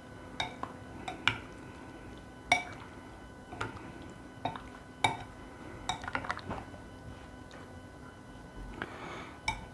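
Irregular sharp clinks of a utensil against a bowl as cubed chicken is mixed into a spice marinade, over a faint steady hum.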